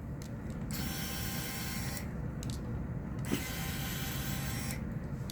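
Small electric screwdriver running in two bursts of about a second and a half each, with a small click between them, backing out the phone's screws.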